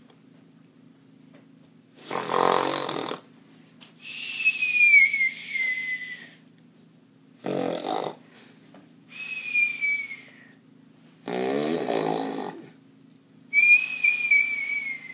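Exaggerated cartoon-style mock snoring, three times over: a rasping, rattling snore on each in-breath, then a whistle that falls slowly in pitch on the out-breath.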